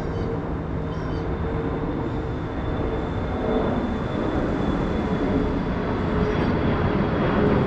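Airplane passing overhead: a steady engine drone with a faint held tone, growing slightly louder toward the end.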